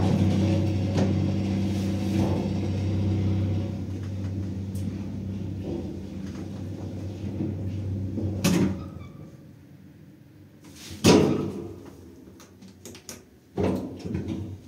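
Elevator running with a steady low hum from its hoist motor. The hum drops in level about four seconds in and dies away past the middle as the car stops. Then come knocks and the sliding and thud of the elevator doors, loudest about two-thirds of the way through.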